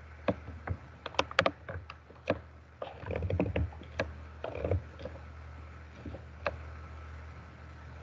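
A run of irregular clicks and knocks, some in quick clusters, over a low steady hum; the clicks stop about six and a half seconds in.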